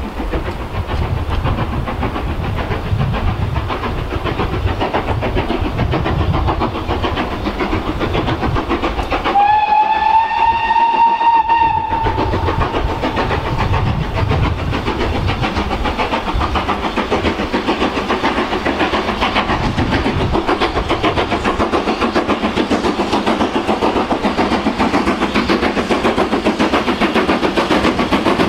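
Double-headed steam train led by BR Standard 5MT 4-6-0 No. 73156 working toward the listener. A steam whistle blows for about two and a half seconds about a third of the way in, rising slightly in pitch and then holding. The chuffing of the locomotives' exhausts grows a little louder as the train draws nearer.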